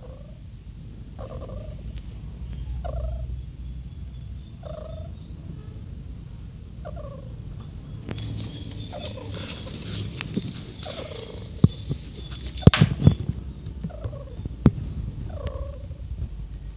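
Pet civet snoring in deep sleep: one short, rasping snore a little more than once a second, over and over. Several sharp clicks come through the snoring in the second half, the loudest about thirteen seconds in.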